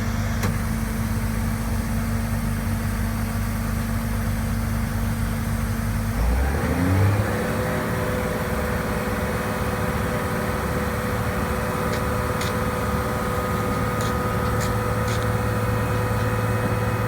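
Caterpillar AP655D paver's diesel engine running steadily at low speed; about six seconds in it speeds up with a short rising pitch and holds a steady higher speed. A few faint clicks near the end.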